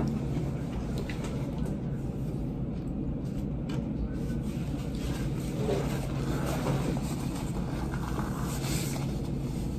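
A steady low mechanical hum at one unchanging pitch, with a rumble beneath it and a few faint clicks on top.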